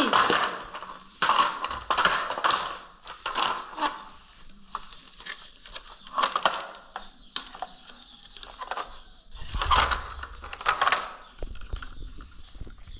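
A plastic toy front loader being handled, tipped over and knocked on a tiled floor: irregular bursts of plastic clatter and scraping.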